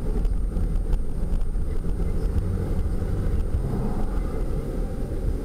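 Steady low rumble of a passenger van driving, its engine and tyre noise heard from inside the cabin.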